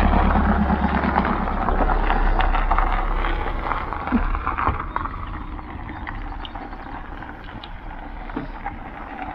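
Volkswagen estate car towing a Hobby caravan pulls away along a gravel lane: engine running low, with tyres on gravel and a few small clicks, fading as it drives off.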